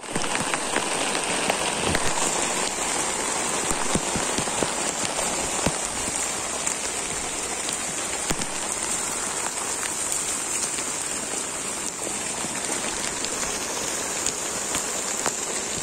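Steady heavy rain falling, with many sharp taps of drops landing close by.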